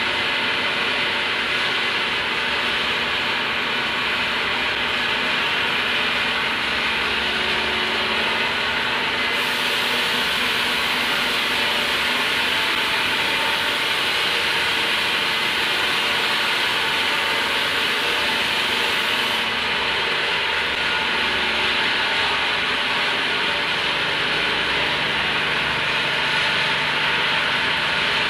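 Industrial vacuum fryer equipment running: a steady hissing machine drone with a faint low hum, unchanging throughout.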